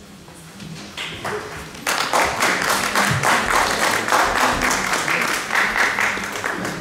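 Audience applauding, many people clapping; the applause starts about two seconds in and keeps up steadily.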